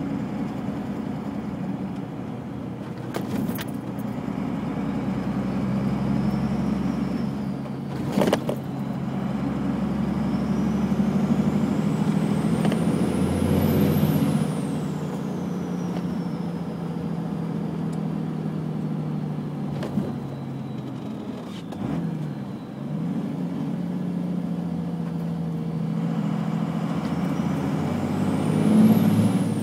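Holset HX35 turbocharger on a 1991 Dodge Cummins 5.9 L inline-six diesel whistling under boost over the running engine. The high whistle rises for about four seconds to a peak and falls away about halfway through, then rises again near the end. A few sharp clicks come in between.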